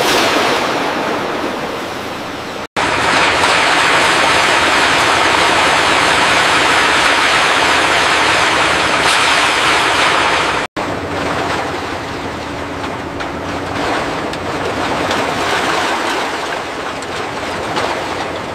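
Loud, dense industrial noise of heavy machinery working scrap metal, in three stretches broken by two abrupt cuts, about three and eleven seconds in. A low steady hum runs under the last stretch.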